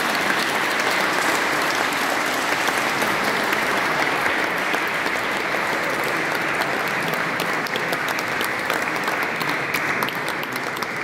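A church congregation applauding, a steady dense clapping that thins into scattered separate claps near the end.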